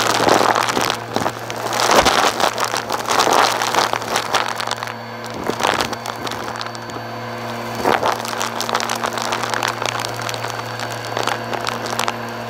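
Bissell Purple Helix vacuum running on the open hose, sucking up glitter, confetti, paper scraps and pom-poms: a steady motor hum under crackling and rattling as the debris rushes up the hose. The crackle is busiest in the first few seconds and thins out as the pile is cleared.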